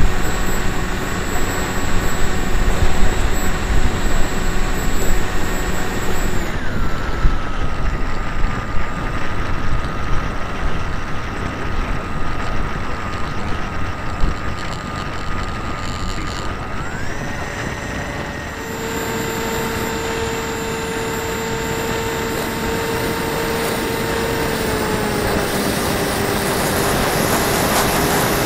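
Onboard sound of a small electric RC model plane in flight: the motor's steady whine stepping down and back up in pitch with throttle changes, over constant wind rush on the airframe.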